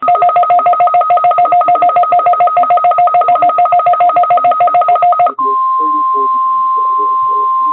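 Emergency alert test tones from a weather radio broadcast: a rapidly pulsing two-tone beeping for about five seconds, then a single steady tone, the NOAA Weather Radio 1050 Hz warning alarm tone, held for about two and a half seconds.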